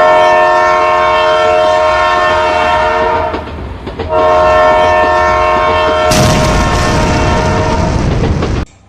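A loud horn of several held tones blows two long blasts with a short gap between them. Partway through the second blast a loud rushing noise joins in, and both stop abruptly near the end.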